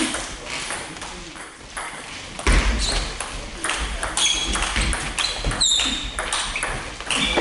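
Table tennis rally: the ball clicks off bats and table in quick succession from about two and a half seconds in, with a few short squeaks of shoes on the hall floor.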